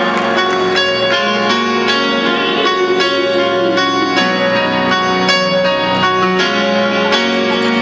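Grand piano playing a slow solo introduction, one note or chord after another, amplified through a concert sound system.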